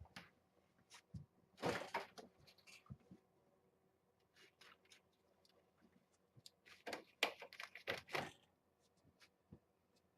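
Faint knocks and rustles in two short clusters, one about two seconds in and a longer one around seven to eight seconds in, with near quiet between.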